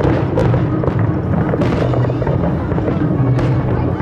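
Aerial fireworks shells bursting, with a sharp bang about every second or two, over loud, steady music.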